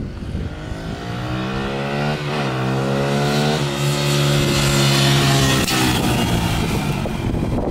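Small dirt bike engine running as the bike rides toward and past: the engine note climbs, drops suddenly about three and a half seconds in, then holds steady and is loudest as the bike passes close by.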